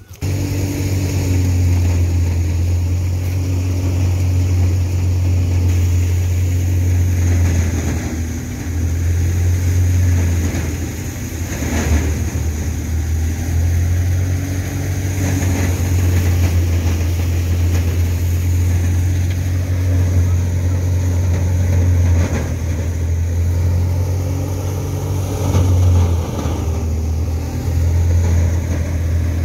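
Tractor-driven wheat thresher, powered by a Massey Ferguson 385 diesel tractor, running steadily with a deep, even drone that dips slightly a few times.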